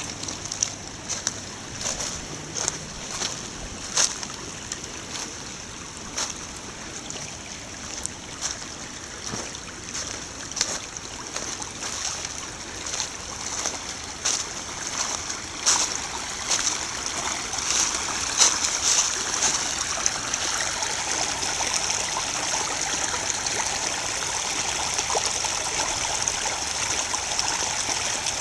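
Small snow-melt stream babbling over gravel, getting louder and steadier past the middle as the water rushes over a small riffle. Irregular sharp crackles run through the first half.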